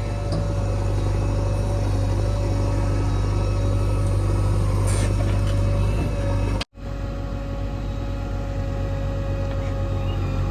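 JCB 3DX backhoe loader's diesel engine running steadily with a low, even hum. About six and a half seconds in, the sound cuts out abruptly for a moment and then resumes.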